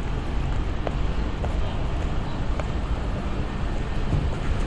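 City street ambience: a steady low rumble of traffic and wind on the microphone, with a few faint clicks.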